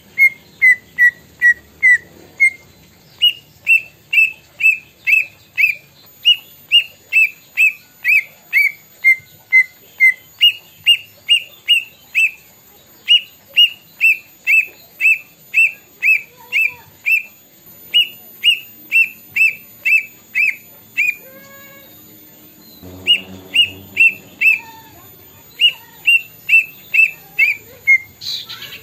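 Cucak ijo (green leafbird) singing a long series of loud, sharp, down-slurred whistles, about two a second, in runs that sometimes step down in pitch: its copy of the plaintive cuckoo's (kedasih) song. A short pause about two-thirds through carries a brief lower sound before the whistles resume.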